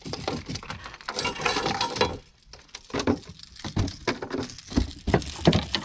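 Irregular clicks, knocks and rattles of rod-and-reel tackle while a hooked fish is being fought, busiest about one to two seconds in.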